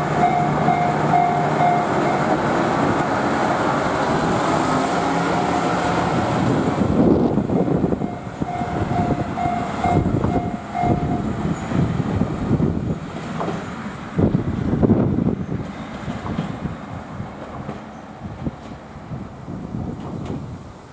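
Tenhama Line diesel railcar running along the track. A level-crossing warning bell rings in steady even pulses at the start and again around nine to eleven seconds in. In the second half the train noise comes in uneven surges and fades toward the end.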